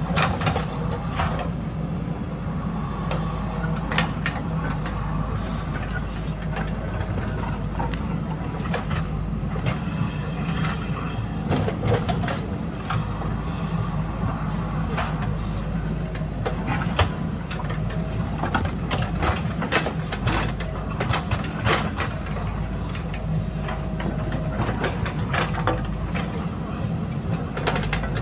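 Diesel engine of a heavy earthmoving machine running steadily under load, with frequent sharp clanks and knocks of rock and metal.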